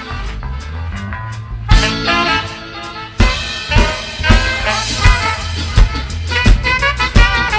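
Live ska band playing an instrumental passage: two trumpets and an alto saxophone play the horn line over drum kit, bass and guitar. A loud drum hit about three seconds in starts a steady beat of about two hits a second.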